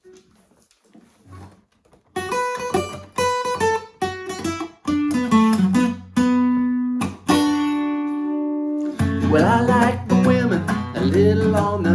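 Country song intro: acoustic guitar plays single plucked notes that ring out, some held long. About nine seconds in, the full band comes in.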